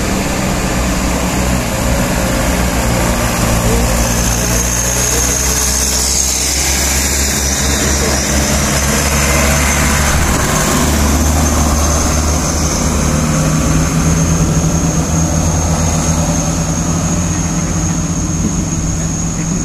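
Diesel engine of a heavily loaded sugarcane truck pulling up a steep hairpin grade, swelling as it passes close by about halfway through and then heading away uphill. A thin, steady high whine runs alongside from a few seconds in.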